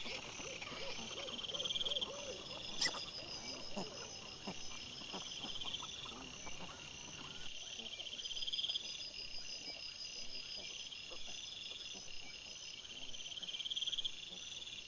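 Night insects calling in steady rhythmic trills that swell and fade every couple of seconds. Over them, in the first half, wild boar and piglets foraging: a quick run of short grunts near the start, then scattered squeaks, rustling and one sharp click.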